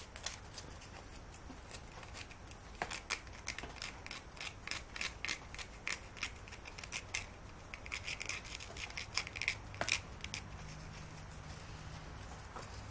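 Sandpaper rubbed by hand on a broken plastic part, roughing it up: a run of short, irregular scratchy strokes, several a second, starting about three seconds in and stopping about ten seconds in.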